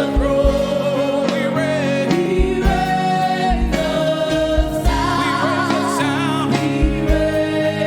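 Live gospel praise and worship music: singers holding long notes with vibrato over sustained keyboard chords and a steady bass-drum beat.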